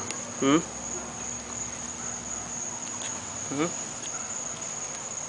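Steady high-pitched trill of night insects, typical of crickets, running unbroken, with two brief human voice sounds about half a second and three and a half seconds in.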